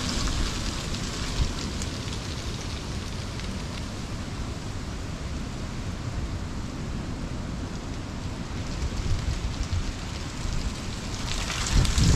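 Storm wind and rain, the wind buffeting the microphone with a steady low rumble. A stronger gust comes up near the end.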